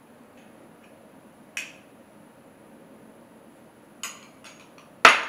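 A spoon clinking against a measuring cup and glass bowl while Greek yogurt is scooped out: one clink about a second and a half in, a few light taps around four seconds, and the loudest clink near the end.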